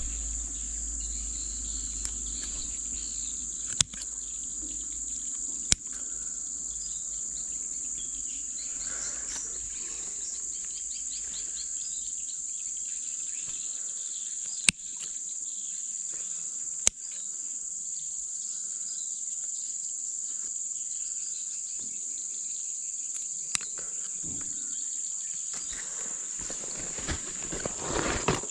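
Steady high-pitched drone of insects along a jungle riverbank, with a few sharp clicks scattered through it and a brief rustle near the end.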